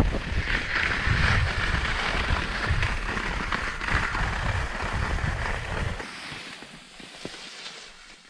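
Skis sliding and scraping over snow on a descent, with wind rumbling on the microphone. About six seconds in, the wind rumble cuts off and the sliding turns much quieter.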